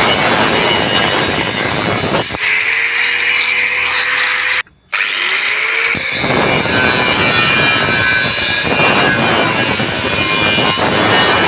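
A power tool cutting metal, a dense grinding noise. About two seconds in, the sound changes to a steady whine with a brief cut-out, and the cutting noise returns about six seconds in.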